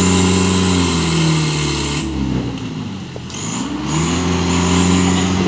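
Heavy diesel engine held at high revs, its note sagging and dropping off about two seconds in, then climbing back and holding again. A high whine above it drops out while the revs are down.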